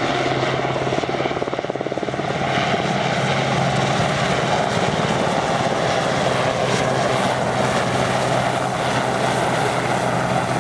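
RAF Westland Sea King search-and-rescue helicopter in low flight, its twin turboshaft engines and main rotor making a steady low hum and rotor chop, with a slight dip in loudness about two seconds in.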